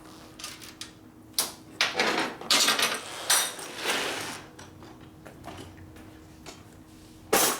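Scraping and clattering of objects being handled, in a run of irregular noisy bursts through the middle and one loud scrape near the end, over a faint steady hum.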